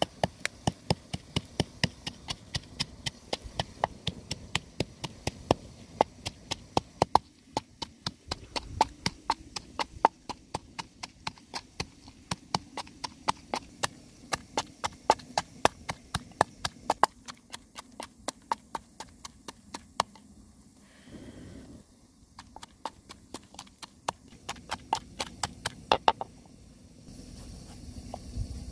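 Wooden pestle pounding chilies in a wooden mortar: a steady run of sharp knocks, about three to four a second, with a couple of short breaks, stopping a few seconds before the end.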